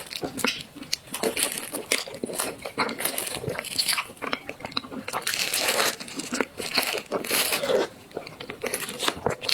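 Close-miked eating of desserts: an irregular run of bites and chewing.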